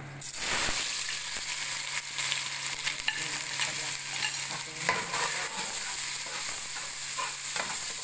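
Chopped onion sizzling in hot oil in a metal pot, the sizzle breaking out suddenly just after the start as the onion goes in. A metal spoon stirs it, clicking and scraping against the pot now and then.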